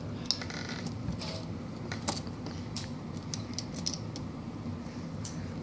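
Plastic Lego bricks clicking and rattling as they are handled and pressed together: a scatter of small sharp clicks, the loudest about two seconds in, over a steady low hum.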